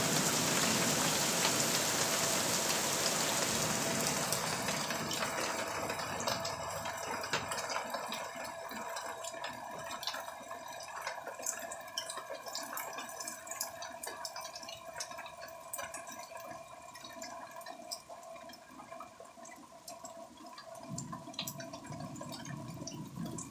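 Rain falling hard, then tapering off over the first several seconds into scattered drips, with faint steady tones underneath.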